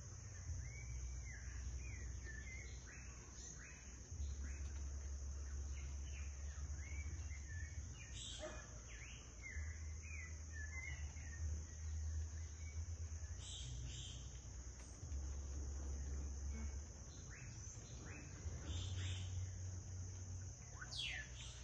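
Many short bird chirps and whistles over a steady high-pitched insect buzz, with a low rumble that swells and fades.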